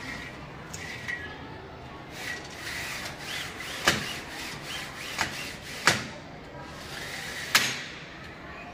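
Pleated mosquito net door being slid open and shut by hand: a soft swishing as the pleated mesh folds and unfolds, broken by four sharp clacks as the sliding handle bar meets its stops on the frame.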